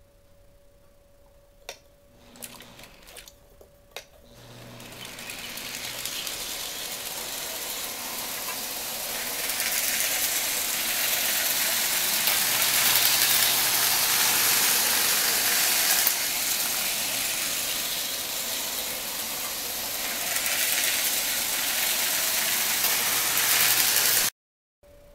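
Lionel three-rail toy train running on metal track: a steady mechanical rattle and whirr of motor and wheels. It starts after a few sharp clicks, grows loud from about four seconds in, and cuts off suddenly near the end.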